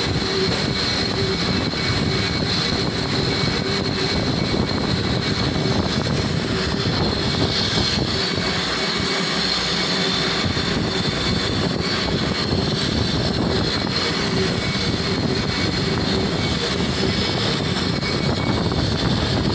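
Lathe running steadily: a constant machine noise with a steady hum and a high whine.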